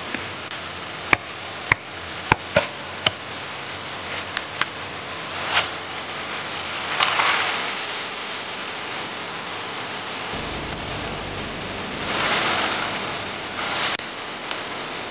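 Chopping knife hacking through a bamboo culm: a series of sharp knocks over the first five seconds, then a longer leafy swish and rustling as the cut stalk is pulled down, with more rustling and a knock near the end, over a steady background hiss.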